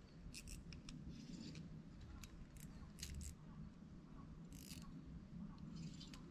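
Fishing reel giving short, irregular bursts of faint high-pitched clicking while a hooked bass pulls against the bent rod.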